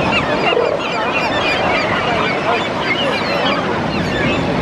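A flock of gulls calling all at once: many short, overlapping cries with no let-up, over a steady background wash.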